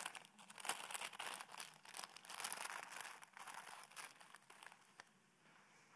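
Fresh spinach leaves crackling and sizzling in a hot stainless steel pan as they start to wilt: an irregular run of small crackles over a fine hiss, dying down about five seconds in.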